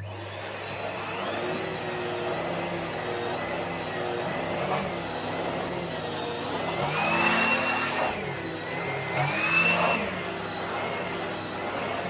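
Numatic Henry HVR200 vacuum cleaner starting up abruptly and running steadily, its motor whine twice rising in pitch and getting louder, about seven and again about nine and a half seconds in.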